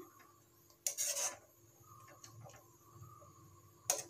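A steel spoon scraping across the bottom of a kadhai while stirring grated carrots simmering in milk, to keep them from sticking. A louder scrape comes about a second in and another near the end, with fainter scrapes between.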